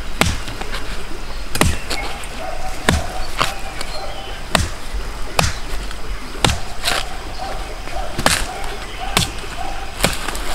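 Curved billhook chopping into the base of a young bamboo shoot: a dozen or so sharp strikes at an uneven pace, roughly one every half second to a second.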